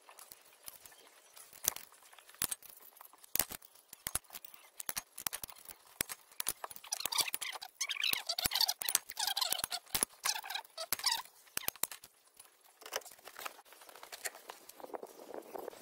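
Steel hand tools clicking, clinking and knocking against a removed front wheel hub and brake disc, with a run of fast, dense clicking and scraping in the middle and a soft shuffle near the end.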